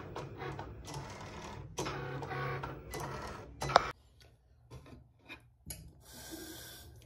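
Cricut cutting machine running as its motors drive the blade carriage and mat, cutting iron-on vinyl, with a sharp click just before four seconds in. The machine sound then cuts off abruptly, leaving only faint small sounds and a short hiss near the end.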